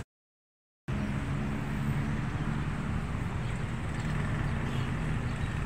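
Just under a second of dead silence, then a steady low rumble of road traffic.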